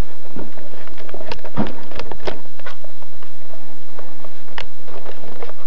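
Irregular knocks and clicks from movement and handling close to a camcorder's microphone, the densest run about one and a half to two and a half seconds in.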